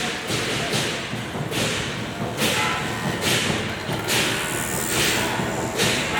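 Procession drums and cymbals beating a steady rhythm: low drum thumps with a ringing cymbal crash about once a second.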